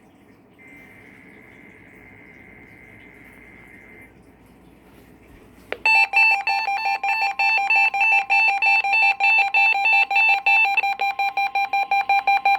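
Weather radio receivers going off for a Required Weekly Test: a faint steady electronic tone for a few seconds, then, about six seconds in, a loud, rapidly pulsing electronic beeping alarm of several tones at once, triggered by the test signal.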